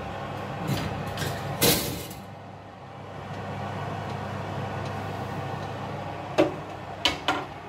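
A glass baking dish is set onto a wire oven rack, with a few clinks in the first two seconds. Near the end the oven door swings shut with a sharp knock and two shorter clatters. A steady low hum runs underneath.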